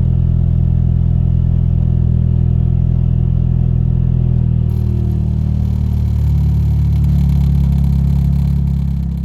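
Ford Focus RS Mk3's 2.3-litre EcoBoost four-cylinder engine idling steadily after a new vapor canister purge solenoid was fitted and the ECU reset. The engine note shifts slightly higher about five seconds in.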